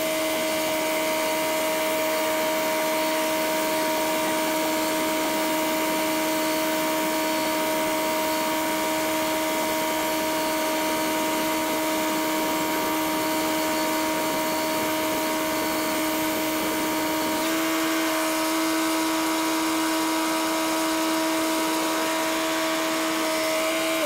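TimberKing 2000 band sawmill cutting along a pine cant: the engine and band blade run under steady load, a constant whine over a rough hiss, and the pitch shifts slightly about two-thirds of the way through.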